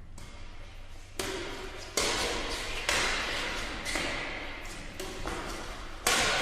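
Badminton racket strikes on a shuttlecock in a rally: several sharp hits at uneven intervals about a second apart, each ringing out in a large hall's echo. The loudest hits come about two, three and six seconds in.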